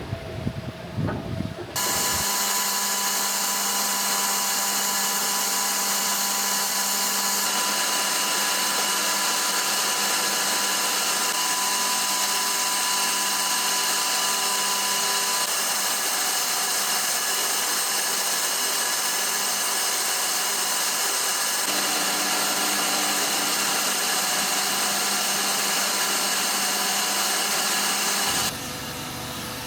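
A machine or power tool running with a steady, high-pitched whine. It starts suddenly about two seconds in and cuts off near the end.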